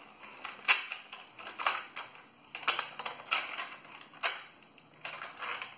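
Hard plastic parts of a toy robot clicking and knocking as they are handled: about a dozen irregular sharp clicks while a piece is worked into the opened chest hatch.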